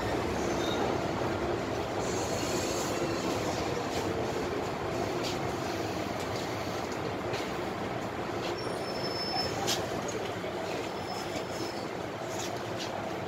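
Interior sound of an MTR Island Line M-Train metro car running through a tunnel: a steady rumble of wheels and motors that slowly gets quieter as the train slows for a station. A few faint high squeals come in over the second half.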